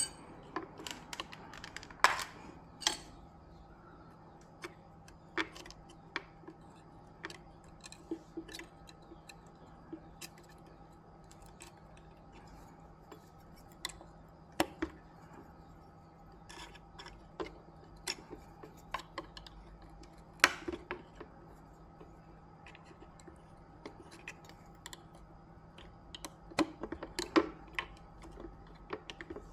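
Scattered small clicks and taps of hand tools and parts being handled on a workbench, coming at irregular intervals over a steady faint hum.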